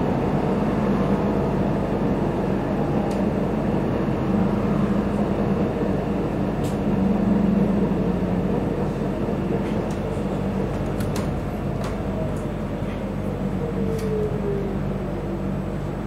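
Steady running noise of a vehicle: a low continuous hum with a faint whine that slowly falls in pitch in the second half, and a few light clicks.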